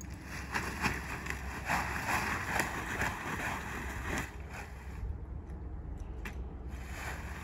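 Blue tarp rustling and crackling in a man's hands as it is lifted and thrown over a saddled horse's back, over a steady low rumble of wind on the microphone. The crackling is busiest in the first four seconds and dies down about five seconds in, once the tarp is lying on the horse.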